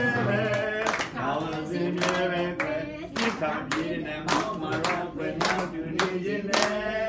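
A group clapping in time to a sung song, sharp hand claps at a steady beat of about two to three a second over a voice singing the melody.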